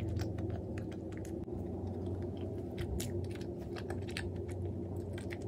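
A person chewing a cream-filled bread pastry close to the microphone, with many small irregular mouth clicks over a steady low hum.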